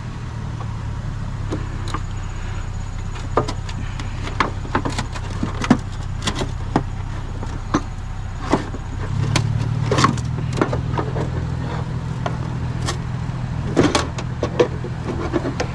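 Vehicle engine idling with a steady low hum that gets stronger about nine seconds in, with scattered sharp clicks and knocks over it.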